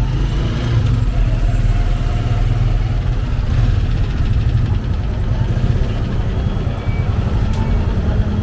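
Motorcycle engine of a tricycle running steadily, heard from inside its sidecar as a loud, deep drone.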